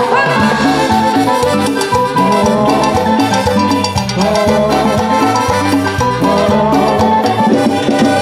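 Live band playing dance music with a steady beat, an instrumental passage with no singing.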